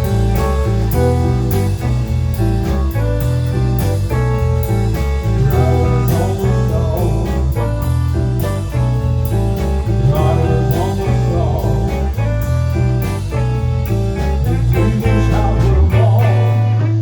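Blues-style background music with guitar over a bass line that steps from note to note.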